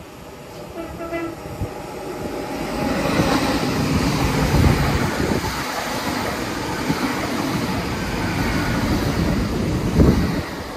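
Great Western Railway Hitachi Intercity Express Train sounding its horn briefly about a second in as it approaches. It then passes close by, its running noise rising to a steady rush, with a heavy thump near the end.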